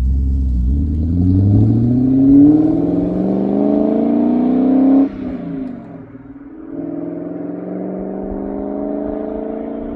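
BMW E39 M5's V8 engine accelerating through a gear, its pitch climbing for about five seconds, then dropping off suddenly at a gear change; after a short lull it pulls again with a steadier, slowly rising note.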